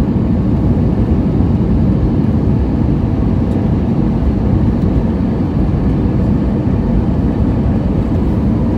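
Airbus A320 cabin noise heard from a window seat on approach: a steady, unchanging low rumble of the jet engines and the air rushing past the fuselage.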